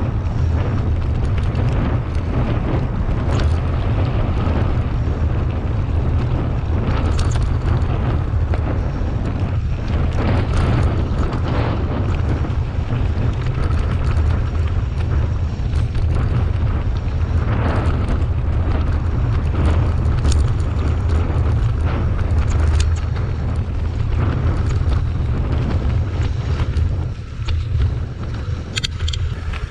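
Heavy wind rumble on a bike-mounted camera's microphone as a mountain bike descends fast over a dirt and leaf-covered forest trail, with tyre noise and scattered clicks and rattles from the bike over bumps.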